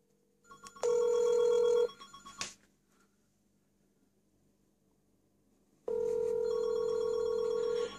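A phone shut inside a closed microwave oven rings electronically in two bursts, a short one about a second in and a longer one near the end: the call is getting through the microwave's door shielding.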